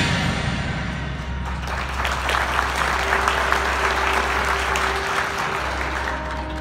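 A marching band's loud passage dies away, and audience applause swells about a second and a half in. A soft held note sounds faintly under the clapping.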